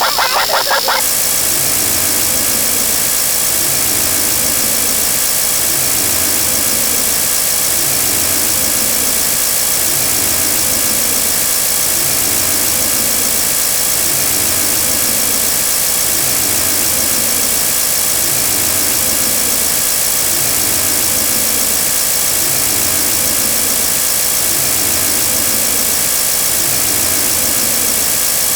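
Engine sound effect running steadily at idle, with a low pulse that repeats evenly. It is one of the counting video's vehicle effects: car starting, motorcycle or airplane.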